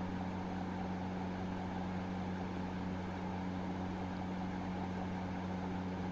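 A steady low machine hum, holding one pitch throughout.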